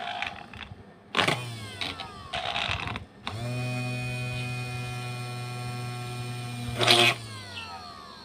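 Homemade drill built from a 12 V 775 DC motor, switched on in short bursts, each followed by a falling whine as it spins down. About three seconds in it runs with a steady whine for about four seconds, then gives a loud burst and winds down with a falling whine.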